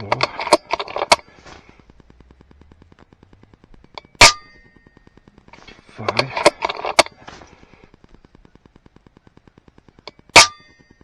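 FX Impact M2 .22 PCP air rifle firing 27-grain H&N slugs: two sharp shots, about four seconds in and again near the end, each with a brief metallic ring. Between the shots come bursts of mechanical clicking.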